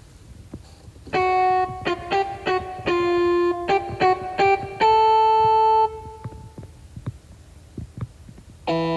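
Short electric guitar riff in a transformation-belt sound effect: a run of held, distorted notes lasting about five seconds, the last one ringing out, then a pause and the riff starting again near the end.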